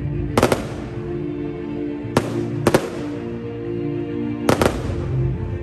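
Fireworks going off in sharp bangs, coming in small groups about every two seconds, over music with long held notes.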